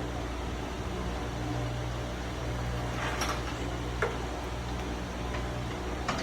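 Steady low mechanical hum of shop background noise. Over it come a few light clinks of a motorcycle drive chain being fed around its front sprocket: one about three seconds in, another a second later, and one near the end.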